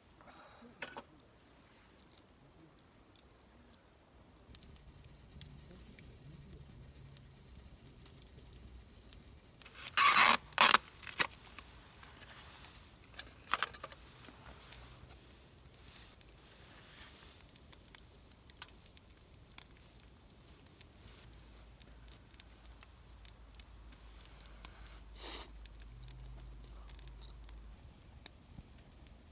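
Scattered short clinks and rattles of metal camp gear being handled, loudest in a quick cluster about ten seconds in, over a faint steady background.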